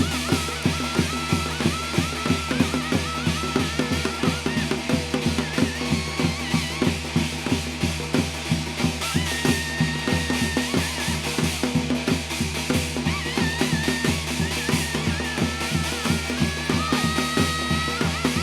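Korean shamanic gut ritual music: fast, steady drumming, about four to five strokes a second, with a high wavering melody line gliding above it.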